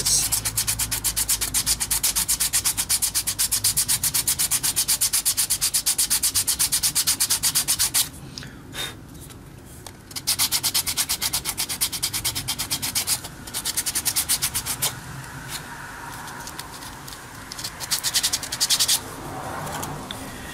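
Hand sanding of a wooden toy with a sandpaper-tipped stick: rapid back-and-forth rubbing strokes, many a second. They break off for about two seconds partway through, then resume in shorter runs, softer for a while before a last brisk run near the end.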